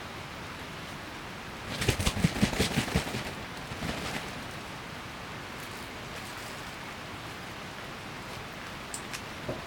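Steady heavy rain falling, with a burst of rapid sharp taps about two seconds in, a few more soon after, and a couple of single taps near the end.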